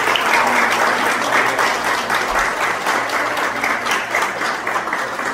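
A small congregation applauding: dense, steady hand clapping that eases off slightly toward the end.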